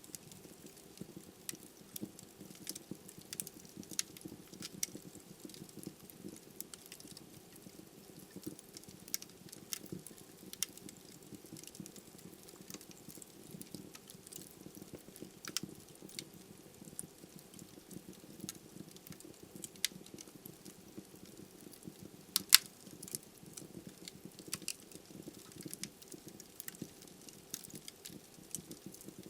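Wood fire burning in a fireplace: a steady low rush of flame under frequent small crackles and snaps of burning logs, with one sharper pop about two-thirds of the way through.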